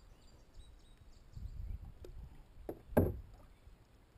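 A small red folding grapnel anchor being hauled up by its rope into a plastic kayak. There are soft rope and water handling sounds and a few light clicks, then one sharp knock about three seconds in as the anchor comes up against the hull.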